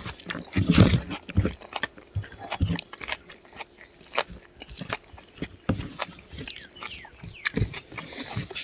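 A person chewing and biting into spicy pork with rice, an irregular run of short clicks and smacks.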